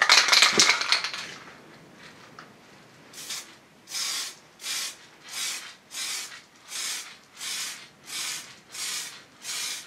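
A short aerosol spray hiss dies away in the first second. From about three seconds in come regular back-and-forth rubbing strokes, about three every two seconds: hand sanding of car bodywork with wet-and-dry paper on a rubbing block.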